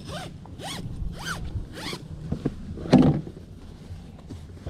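Sleeping bag zipper pulled in four quick rasping strokes, about half a second apart, followed about three seconds in by a dull thump, the loudest sound.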